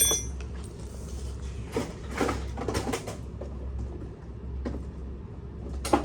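Metal hand tools and pump parts being handled: a sharp metallic clink with a brief ring, a run of clattering knocks about two to three seconds in, and another knock near the end, over a steady low hum.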